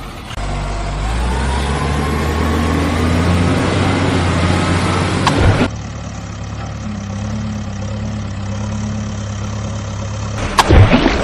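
Motor-vehicle engine sound running, its pitch rising steadily over the first five seconds. It cuts off abruptly near six seconds into a second, steady idling engine sound. A few sharp knocks come near the end.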